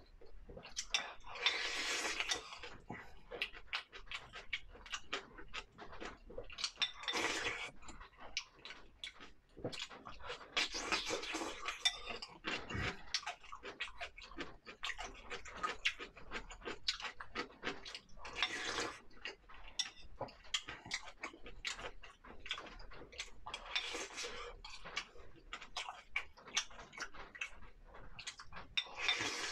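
Close-miked eating of fish slices in spicy broth: steady chewing and mouth clicks, with about six slurps, each lasting around a second, spread through the stretch.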